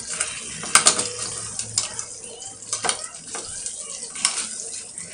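A metal utensil clinking and knocking against a glass baking dish several times, over a steady hiss.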